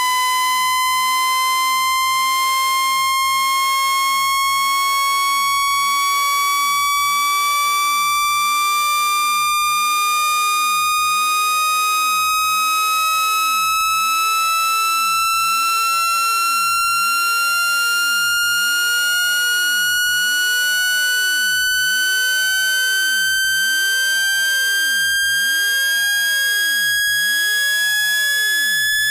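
Electronic tone for driving water out of a phone speaker: one steady, loud tone with overtones, rising slowly and evenly in pitch.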